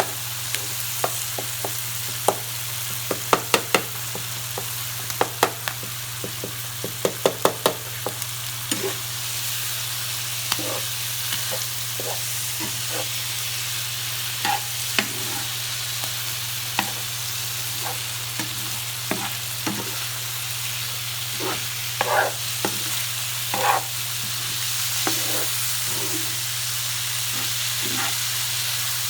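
Chicken livers frying and sizzling in a pan while being stirred. The stirring utensil clicks and knocks against the pan, in quick runs about 3 and 7 seconds in and scattered strokes after, over a steady low hum.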